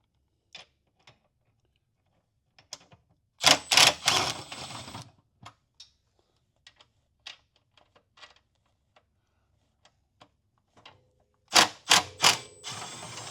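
Quarter-inch drive ratchet clicking in two quick runs, about three and a half seconds in and again near the end, with scattered light clinks and taps of tools between.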